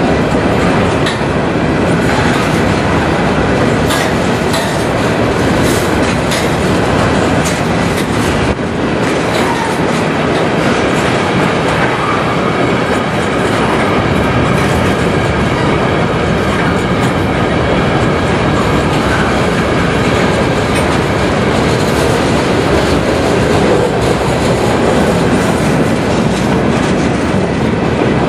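Empty covered hopper cars of a freight train rolling past close by: a loud, steady rumble of steel wheels on rail with repeated clacks as the wheels cross rail joints.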